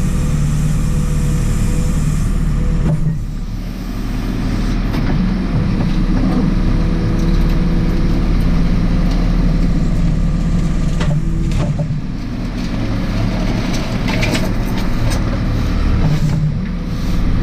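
Diesel engine of a JCB 4CX backhoe loader running steadily, with a low even hum that dips briefly in level about three seconds in and again around twelve seconds.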